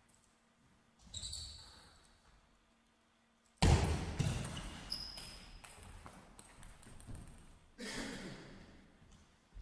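Thumps, clicks and brief squeaks from players moving about a table tennis court between points. The loudest is a sudden thump about three and a half seconds in that rings on in the large hall.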